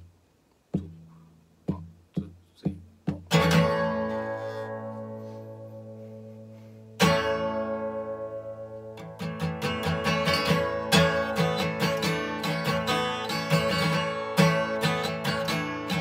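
Solo acoustic guitar: a few single plucked notes, then a chord struck about three seconds in and left to ring, another about seven seconds in, and from about nine seconds a steady rhythmic strum.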